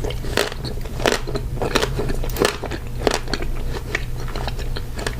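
Close-up eating sounds: biting and chewing a banana treat, with sharp crunchy clicks roughly every half second to second.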